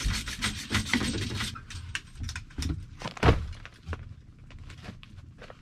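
Copper refrigerant line being sanded by hand in quick back-and-forth strokes, to clean it before it is cut. The strokes stop about a second and a half in, followed by scattered clicks of tool handling and a loud thump about three seconds in.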